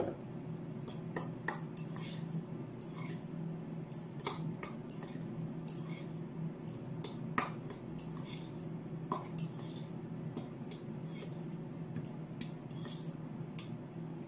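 Cutlery clinking and scraping against a stainless steel bowl as couscous is stirred, in many short, irregular clicks, with a sharper knock right at the start and a steady low hum underneath.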